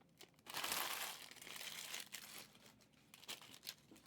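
Foil trading-card pack wrappers crinkling as they are handled: a dense rustle starting about half a second in and lasting about two seconds, then a few lighter crinkles and ticks.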